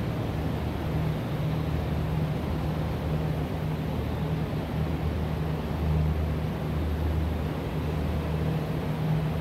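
Steady low drone of a running car engine.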